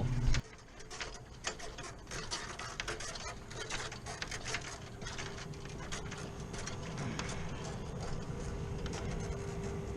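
Irregular clicks and light rattles of hand tools and gear being handled. A faint steady hum comes in about three seconds in.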